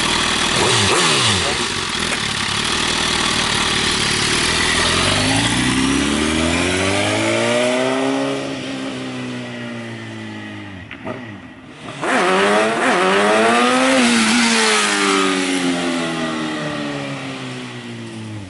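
Suzuki GSX-R inline-four motorcycle engine with a Leo Vince exhaust, DB killer fitted, revving up. Its pitch climbs and falls twice, with a short break about two-thirds through, and the sound fades near the end.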